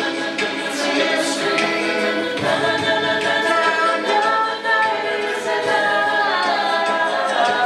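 A cappella vocal group singing in harmony, several voices holding sustained chords that change about two and a half seconds in and again near the end.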